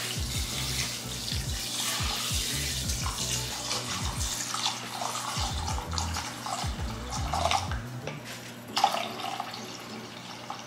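Water pouring in a steady stream from a plastic pouch into a glass bowl of dry instant rice, splashing into the bowl.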